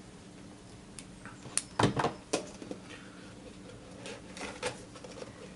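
Cardboard product box being handled: a cluster of sharp knocks and taps about two seconds in, and a few lighter taps later.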